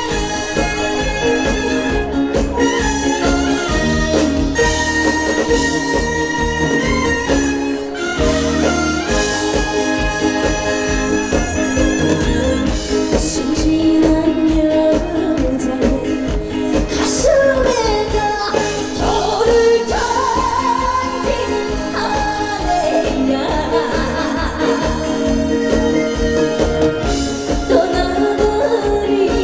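Live band playing a trot song with strings, its instrumental intro giving way to a woman singing about halfway through.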